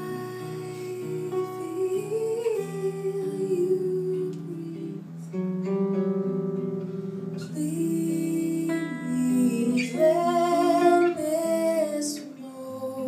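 A woman singing a slow jazz melody, accompanied by an archtop jazz guitar played through an amplifier. Near the end she holds a note with vibrato.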